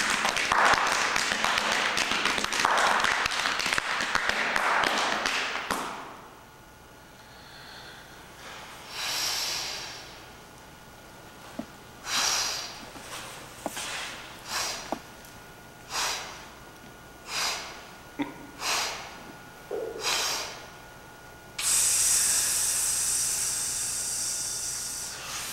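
A rapid flurry of hand slaps on the body for about six seconds, then heavy breathing: about ten short, loud breaths through nose and mouth, roughly a second apart. Near the end comes a long, steady hissing exhale of about three seconds.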